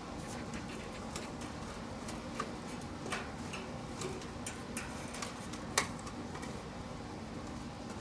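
Scattered small clicks and taps of wiring and plastic connectors being handled on an air conditioner's inverter circuit board, the sharpest click about three-quarters of the way in, over a steady low hum.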